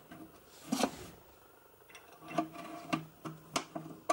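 A screwdriver turning in the cam-lock fittings of an IKEA Kallax shelf unit's particleboard panels, making a series of sharp clicks and knocks. The loudest comes a little under a second in, and a cluster follows in the second half.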